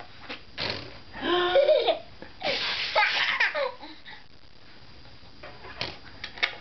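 A baby blowing raspberries against a cardboard box, twice, each time breaking into giggling laughter; a few short clicks near the end.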